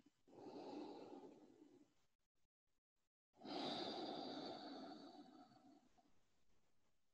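A woman's soft audible breathing: one breath about half a second in, then a longer, louder sigh starting about three and a half seconds in that slowly fades away.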